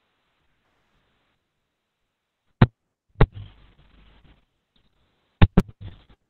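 Four sharp clicks, two about halfway through and a close pair near the end, each followed by a brief faint crackle. Between them there is near silence.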